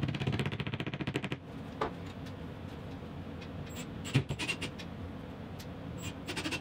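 Cordless drill/driver driving screws into drywall anchors in a ceiling: a fast rattling run of clicks for the first second and a half, then a sharp knock about four seconds in with a short burst of driving after it, and another short burst near the end.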